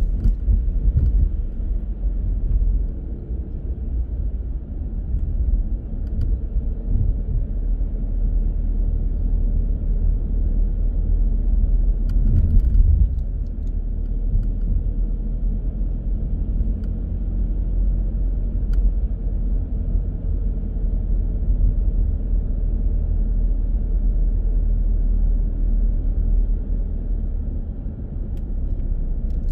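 Low, steady rumble of a car driving: road and engine noise, with a brief louder swell a little before the middle.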